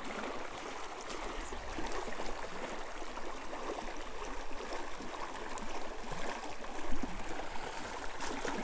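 Small, shallow creek running over a gravel bed: a steady rush of water.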